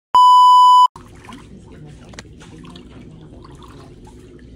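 A loud, steady electronic test-tone bleep of the kind played with TV colour bars, lasting under a second. It cuts off sharply to faint background noise with a low hum.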